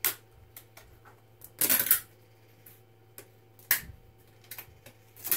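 3D-printed PLA raft being snapped and peeled off a printed part: sharp plastic cracks and clicks, with a crackling run of snaps about a second and a half in and single sharp cracks near the start, a little before four seconds and near the end.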